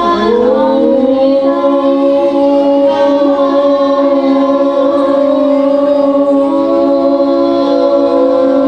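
Singing: one long note that slides up into pitch at the start and is then held steady for about eight seconds.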